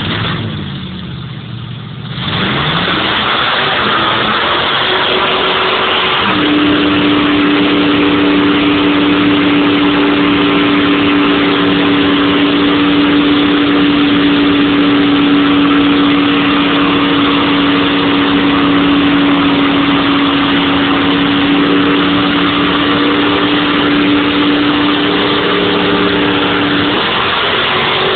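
Drag car doing a long burnout: the engine revs up about two seconds in and is then held at steady high revs for about twenty seconds, over a loud roar of spinning rear tyres, before the revs drop near the end.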